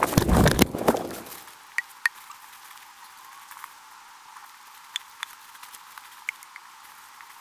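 A loud burst of knocking and rustling in the first second or so, then scattered faint snaps and crackles of boots on dry leaves and twigs on the forest floor.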